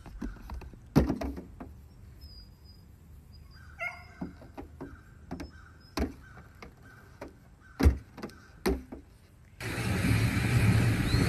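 Hooves knocking and clattering on a car's metal hood and windscreen as a goat climbs and jumps across it, in scattered sharp knocks, the loudest about a second in and near eight seconds. Near the end a steady outdoor rush of noise takes over.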